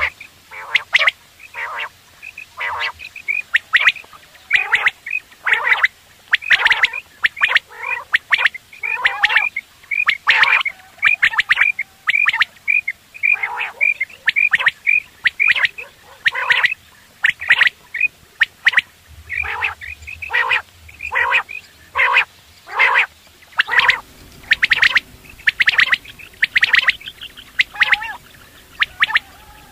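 Common quail (batair) calling over and over, with short notes in quick clusters about every half second.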